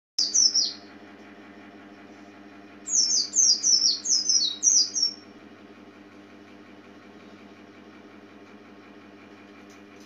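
A caged white-eye (pleci) singing: a quick pair of high, falling chirps at the start, then about three seconds in a rapid run of about eight high, falling notes lasting some two seconds. A steady low hum runs underneath.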